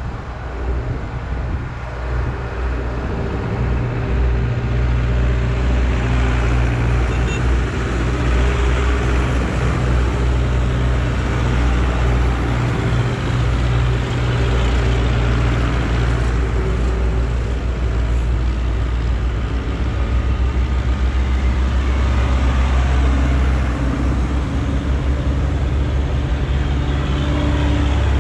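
Zetor tractors' diesel engines running as several tractors drive past one after another: a steady low drone that grows louder as each one comes close.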